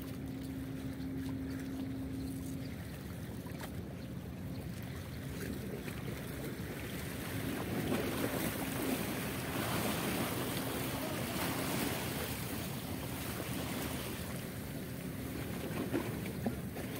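A boat's engine running with a steady droning hum, under wind and water noise that swells louder from about seven seconds in and eases off again near the end.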